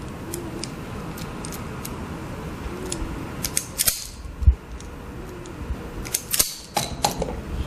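Handheld automatic wire stripper clamping and springing back as it strips insulation off a thin wire. It makes several sharp clicks: a loud one about four seconds in, then a quick pair and one more near the end.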